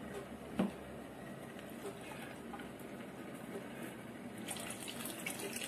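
Pot of dhal curry bubbling at a boil, with a single knock about half a second in.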